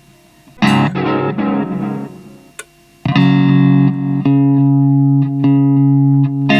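Electric guitar played through a Keeley Halo Core delay pedal. A chord is struck about half a second in and fades away, then from about three seconds in a loud, sustained chord is struck again roughly every second.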